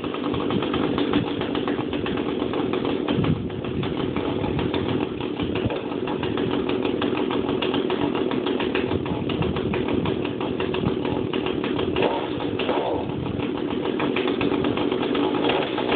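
Echo GT225 string trimmer's small two-stroke engine running steadily just after a cold start, with a brief rise in speed about twelve seconds in.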